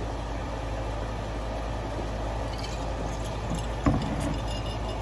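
Steady low hum of a fan or appliance in the room, with faint clicks from eating and a short, low throat sound about four seconds in.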